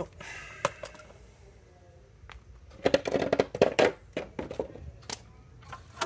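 Handling noise of a motorcycle side cover being removed: scattered clicks and a burst of clattering about halfway through as the loose bolts and the chrome side cover are handled, with a sharper click near the end as the cover comes away from its mounts.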